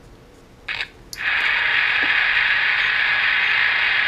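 A brief rustle and click as a 9-volt battery is connected, then, about a second in, a Passport transistor radio's speaker comes on with a loud, steady hiss of static, a lot of noise with no station. This is the set coming back to life after a missing ground connection at the first IF transformer was jumpered.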